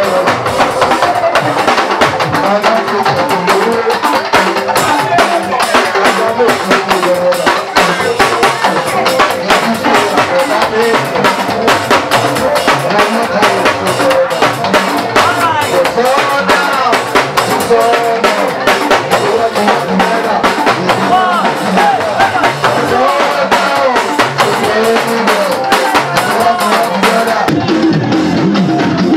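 Dance music with a busy, steady drum beat and a melody over it. Near the end the treble drops away and the sound turns duller.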